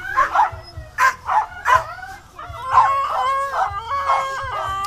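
Several sled dogs yipping and barking in short, quick calls, then breaking into longer overlapping howls for the second half.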